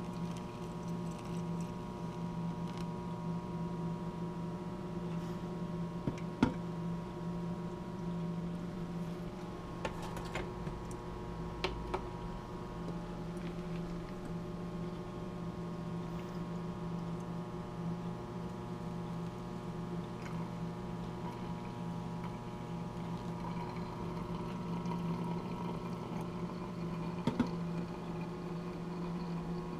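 A steady machine hum with a few sharp clicks and knocks, the loudest about six seconds in and others around ten to twelve seconds and near the end.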